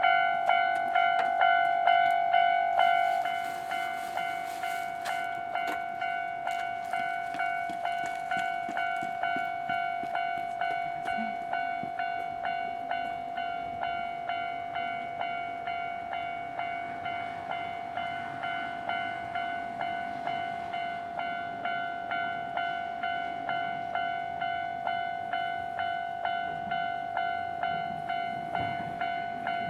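A Japanese railway level crossing's electronic warning bell rings steadily, at about one and a half dings a second. About three seconds in, the ringing drops to a noticeably quieter level and goes on at that volume.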